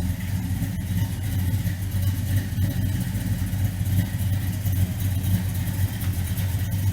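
1967 Ford Fairlane 500 XL's 302 V8 idling steadily.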